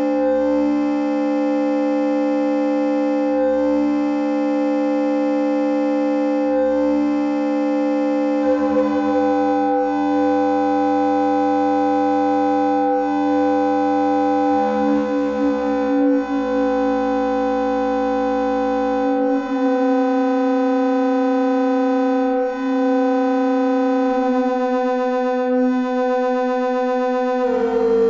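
Electronic synthesizer music: sustained chords of held tones that shift to new pitches every few seconds.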